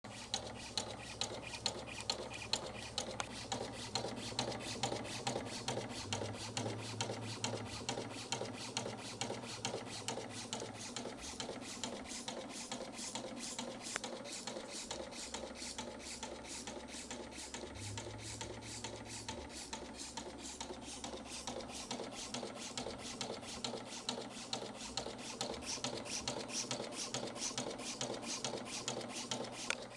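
Taewoo TBC50S label cutting machine running, its cutter chopping in a rapid, even clicking rhythm over a low motor hum that cuts in and out.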